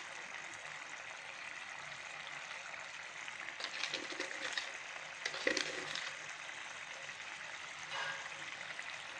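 Bitter gourd curry simmering in its gravy in a pan, a steady bubbling hiss with a few short louder pops midway.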